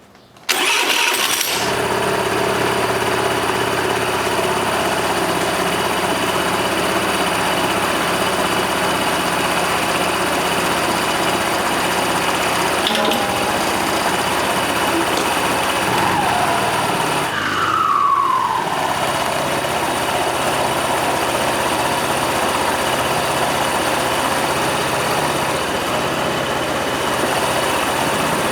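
Honda Benly 110 scooter's small single-cylinder four-stroke engine starting about half a second in, then idling steadily. This is the test run after a new drive V-belt has been fitted.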